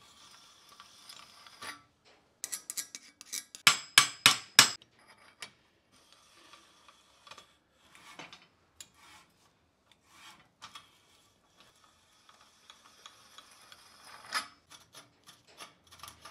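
Die stock cutting a thread on 20 mm galvanised steel conduit: metal rasping and grinding as the die is turned, broken by a run of loud sharp metallic clicks between about two and five seconds in. Near the end a reamer scrapes inside the cut end of the conduit, with one sharp click.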